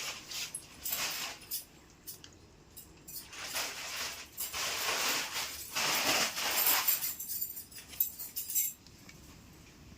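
Things being unpacked and set down: rustling with scattered light clinks and knocks, busiest between about three and a half and seven seconds in.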